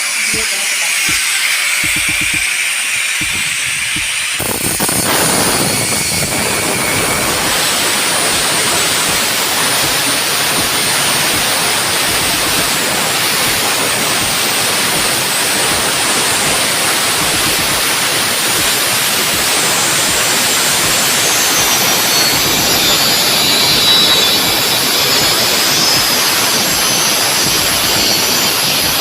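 Angle grinder cutting through a steel cable tray, running loud and steady under load; the sound grows fuller about four seconds in as the disc bites deeper.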